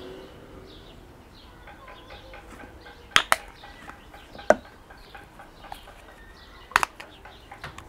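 A handful of sharp clicks and knocks of kitchen utensils against a bowl as mustard is added to the topping: two close together about three seconds in, another a second later, and a double knock near the end. Faint bird calls can be heard behind them.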